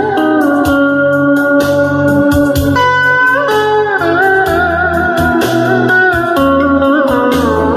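Instrumental music: a solo melody line with sliding pitch bends and vibrato, played over a steady bass and drum backing.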